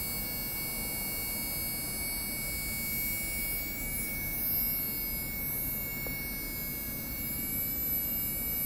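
Handheld RF signal detector sounding through its speaker: a steady electronic buzz and hiss with a thin, unwavering high whine.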